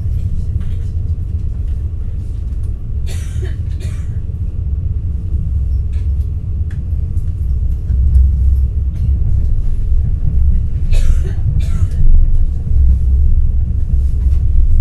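NS ICNG intercity train running, a steady low rumble heard inside the passenger car that grows louder about halfway through. Two short hissing sounds come about three seconds in and again near eleven seconds.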